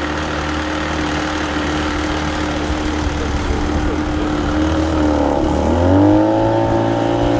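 Boat's outboard motor idling steadily, then throttled up about five and a half seconds in, its pitch dipping briefly and then rising and holding higher.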